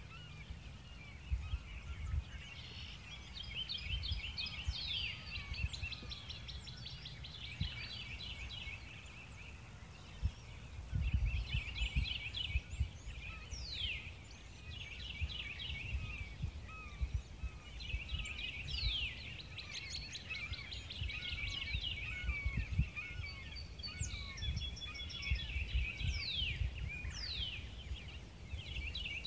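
Several songbirds chirping and trilling in overlapping calls, with quick downward whistles here and there, over a gusty low rumble of wind on the microphone.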